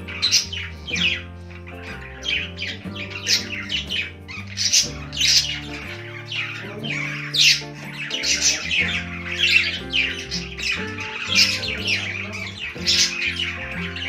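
A flock of budgerigars chirping and chattering in quick, overlapping calls, over background music with low held notes.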